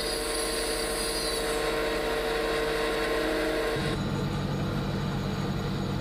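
Steady machine hum with a hiss, typical of welding equipment running in a workshop. About four seconds in the sound changes abruptly: the high hiss drops away and a lower hum takes over.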